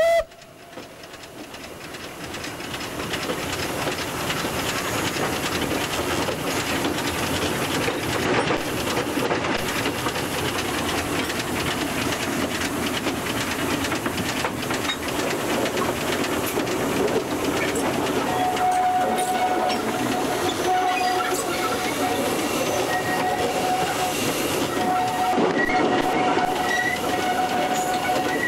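Narrow-gauge steam tank locomotive 298.53 running under steam, heard from on board, with a steady hiss and clatter that builds over the first few seconds. In the last third a faint held tone comes and goes.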